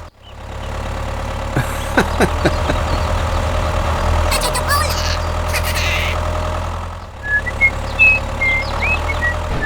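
Steady low engine hum of a mini DIY vehicle running, broken off and resumed about seven seconds in. A few sharp clicks come about two seconds in, and short high chirps sound near the end.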